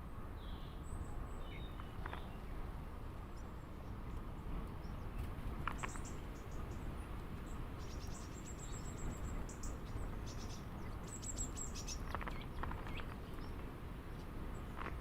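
Small birds chirping outdoors, with high thin chirps and rapid trills clustered in the middle and a few short lower calls, over a steady low background rumble.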